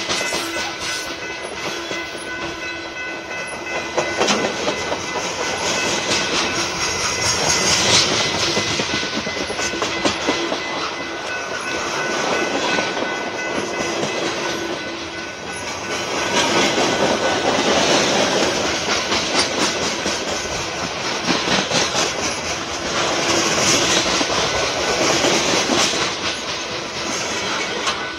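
Freight cars of a BNSF mixed freight train rolling past close by: a steady rumble with the rhythmic clickety-clack of wheels over rail joints, swelling and easing as the cars go by.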